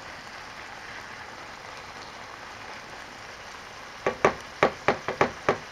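Chicken, pork and onions sizzling in a frying pan with a steady hiss; about four seconds in, a wooden spatula knocks against the pan some seven times in quick succession as the food is stirred.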